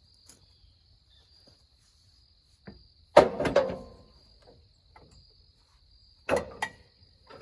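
Steady high insect chirring, with a loud sharp knock about three seconds in and two shorter knocks near the end.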